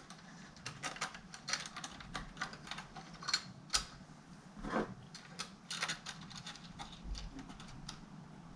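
Irregular small clicks and taps of plastic laptop parts on a Dell Latitude CPi being handled and fitted together during reassembly, a few sharper clicks in the middle.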